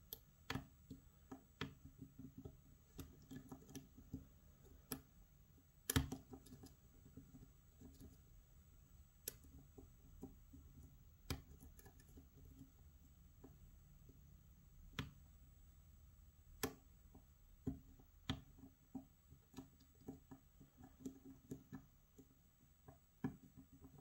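Faint, irregular clicks and ticks of a steel hook pick working the pins of a six-pin challenge lock cylinder under tension, with a few sharper clicks standing out: single-pin picking, feeling for pins to set.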